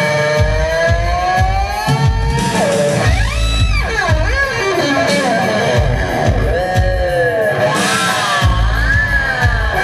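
Electric guitar played live through a pedalboard of effects, its notes sliding and swooping up and down in long, wavering glides.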